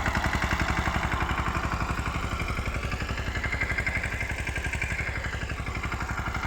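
Mini tractor's engine running steadily with an even, rapid thudding beat.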